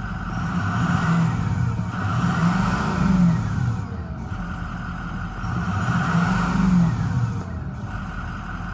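2006 Ford F-250's 6.0-litre Power Stroke turbo-diesel V8 revved twice from idle, each rev rising and falling back, with a high whine rising and falling on each rev.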